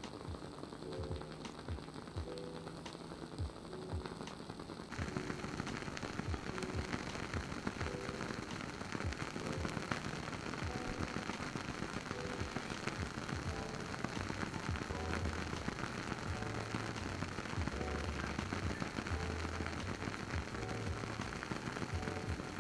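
Wooden wick of a WoodWick Hearthwick candle crackling as it burns, with irregular small pops like a campfire. The pops become much denser about five seconds in. Soft background music plays underneath.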